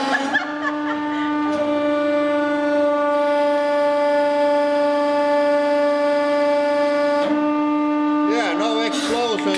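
Hydraulic press pump and motor running under load with a steady whine while the ram holds pressure on the plate, wavering in pitch near the end.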